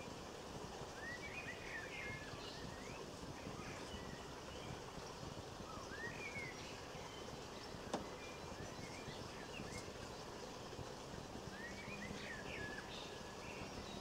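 Small songbird chirping in short twittery groups a few seconds apart, over a steady hiss of outdoor background noise, with one sharp click about eight seconds in.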